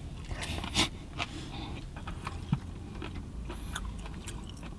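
A person eating raw fish close to the microphone: chewing with scattered small clicks and smacks, the strongest a little under a second in.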